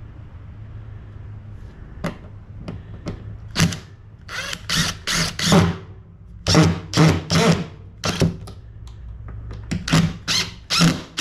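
Power drill/driver running in a series of short, loud bursts, driving a screw into the bench frame, after a few light clicks about two seconds in.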